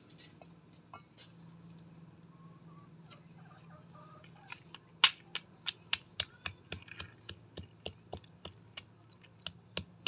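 Chickens pecking grain off hard dirt ground: a run of sharp clicks, about three a second, starting about four and a half seconds in, the first of them the loudest. Before that only a faint low hum.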